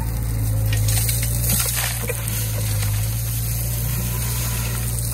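Crushed stone pouring from an excavator bucket into the steel dump bed of a three-wheeled công nông truck, a rattling rush strongest about one to two seconds in. Under it runs the steady low hum of the machines' diesel engines.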